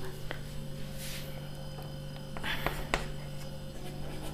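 A low, steady hum, with a few light clicks and a short scrape of chalk on a chalkboard about two and a half to three seconds in as writing begins.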